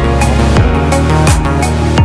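Electronic background music with a steady beat: deep kick drums that slide down in pitch about every 0.7 seconds under sustained synth chords.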